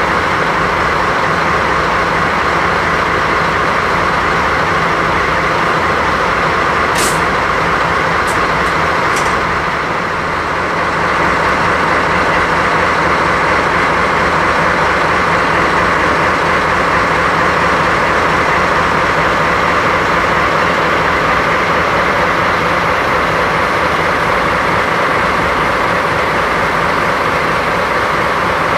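JNR DD51 diesel-hydraulic locomotive's twin V12 diesel engines running steadily at idle while the locomotive stands. Three brief sharp high sounds come about seven to nine seconds in.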